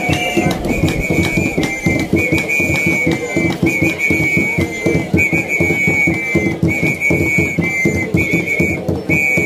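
Kamba traditional dance music: a whistle blown in short two-note phrases about once a second over fast, dense drumming.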